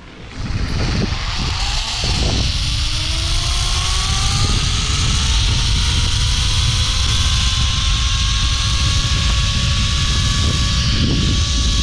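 Zipline trolley running down a steel cable: its pulley wheels give a whine that rises slowly in pitch as it gathers speed, over heavy wind rush on the microphone.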